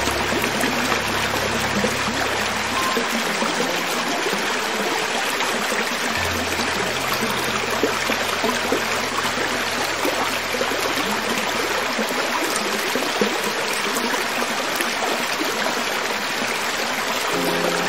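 Creek water running over rocks: a steady, even rush of flowing water. Soft low held notes sound under it for the first few seconds and again from about six to twelve seconds in.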